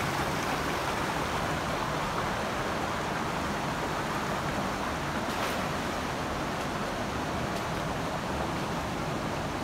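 Steady rushing of a fast-flowing mountain stream, an even wash of water noise with no breaks.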